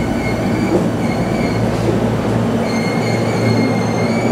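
Hankyu Kyoto Line train pulling into the station, giving a high squeal in three stretches over a steady low hum as it slows.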